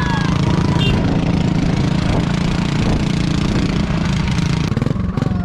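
Motorcycle engine running at low speed with a steady, rapid low thump.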